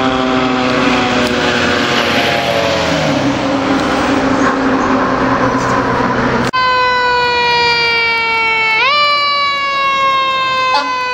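Fire engine passing close by with its mechanical siren winding slowly down over engine and road noise. After a cut about six and a half seconds in, another fire apparatus's mechanical siren coasts down, is wound up sharply about nine seconds in, then coasts down again.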